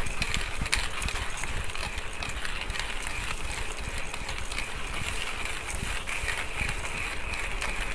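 Timemore Chestnut C2 hand coffee grinder being cranked steadily, its stainless steel burrs crushing coffee beans in a dense, continuous crackle. It is set to a fine grind, 9 clicks.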